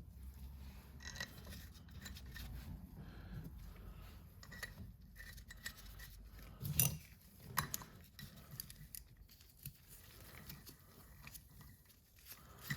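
Light metal clicks and scrapes of bolts and hand tools being worked onto a diesel turbocharger housing, at an irregular pace, with one louder clack about seven seconds in.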